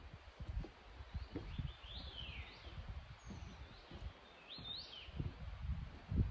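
Wild birds calling: a falling whistled call about two seconds in and short chirps near the five-second mark, over irregular low thumps.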